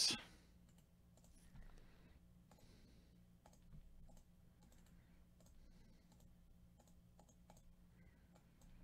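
Faint, scattered clicks of a computer mouse and keyboard, over a low steady hum.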